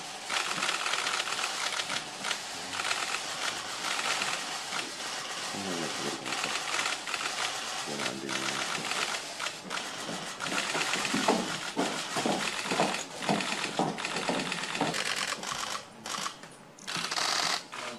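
Many press camera shutters clicking rapidly in overlapping bursts, with a few voices talking underneath.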